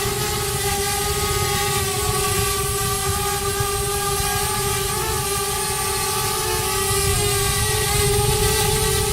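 Multirotor drone's propellers and motors running with a steady, even-pitched whine, the pitch wavering briefly about halfway through.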